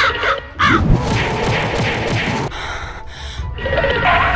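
Cartoon sound effects: a crow cawing over and over in a quick run of calls, then a rushing noise about two and a half seconds in.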